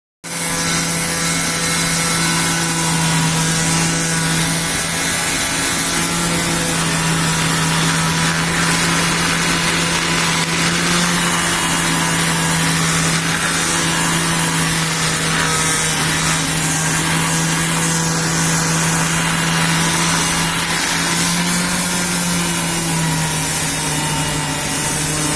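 Electric power tool running steadily against wood, a continuous motor hum with rasping noise, dropping a little in pitch near the end.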